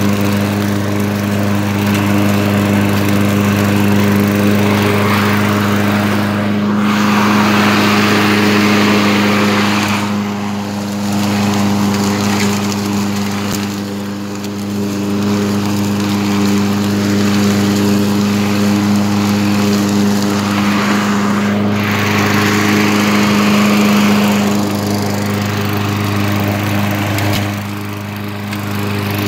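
2012 Craftsman walk-behind lawn mower running steadily while mowing grass, its single-cylinder four-stroke engine holding one even pitch. A hiss from the cutting swells and fades as the mower is pushed along.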